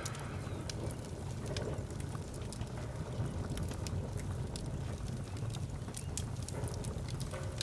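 Steady low outdoor rumble, like wind on the microphone or distant traffic, with scattered light clicks and scuffs.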